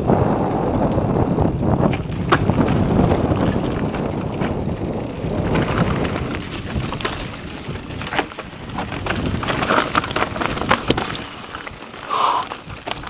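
Mountain bike ridden fast down a dirt and loose-stone trail: wind rushing over the camera's microphone, tyres crunching over the ground, and many quick clicks and rattles from the bike jolting over bumps and stones.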